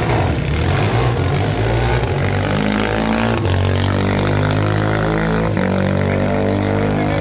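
Drag racing car's engine at full throttle, its pitch climbing steadily through the run, with two brief breaks in the sound about three and a half and five and a half seconds in.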